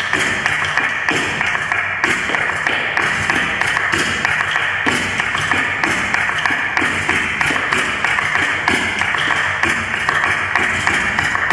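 Flamenco dancer's shoes striking the floor in quick, uneven taps, several a second, over flamenco music with a steady hiss.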